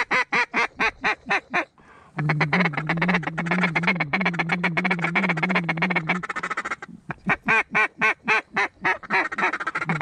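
A duck call blown hard by a hunter in the blind to coax circling ducks in: quick runs of quacks at about six or seven a second, broken by a few seconds of continuous warbling chatter in the middle.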